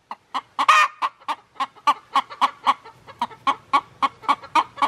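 Hen clucking in a fast, insistent alarm run, about four to five sharp clucks a second, with one louder drawn-out squawk near the start. The chicken is agitated by a kitten close by, and the clucking is really noisy.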